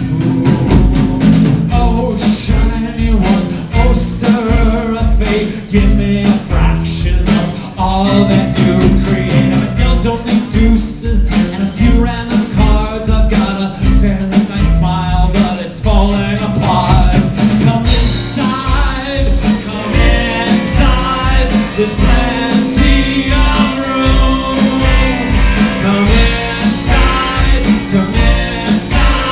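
A live rock band plays a song with a steady drum beat, electric guitar, bass guitar, violin and cello under a male lead vocal. The sound turns brighter and fuller about two-thirds of the way through.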